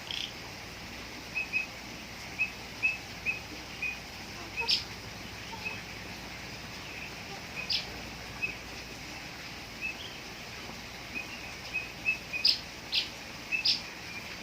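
Short bird chirps, repeated irregularly, with a few sharper, louder calls, three of them close together near the end.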